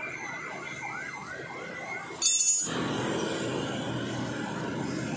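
A siren yelping, a quick rising-and-falling wail repeating about three times a second. It breaks off about two seconds in with a short, loud burst of hissing noise, and a steady background noise follows.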